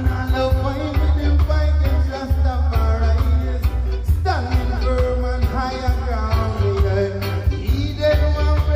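Upbeat Caribbean music with singing over a heavy, steady bass line and a regular beat. About four seconds in, a pitch slides downward.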